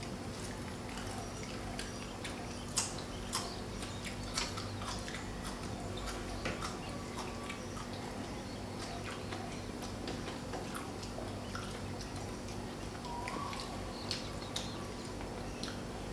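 A person eating seafood salad: soft chewing with scattered sharp clicks, over a steady low hum.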